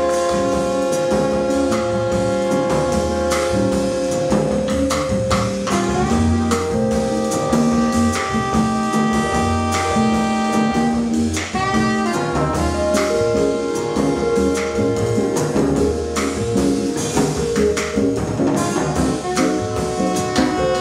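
A small jazz band playing: saxophone and trumpet hold long notes over upright bass and a drum kit keeping time on cymbals and drums.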